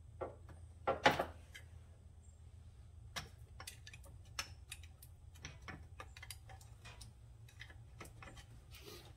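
Scattered light metal clicks and knocks of tools and engine parts being handled, with one louder clank about a second in, while a stuck piston is being worked out of a seized engine. A low steady hum sits underneath.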